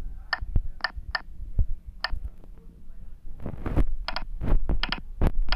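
Touchscreen keypad taps: about ten short key-press clicks, three in the first second, one near two seconds in, then a quicker run from about four seconds in, over dull low thumps.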